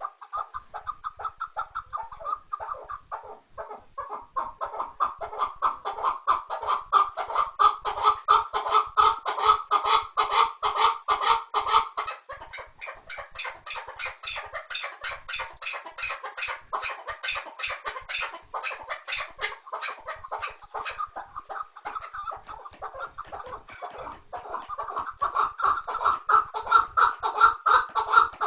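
Chukar partridge calling: a long, unbroken run of rapid clucking chuck notes, several a second, swelling louder twice.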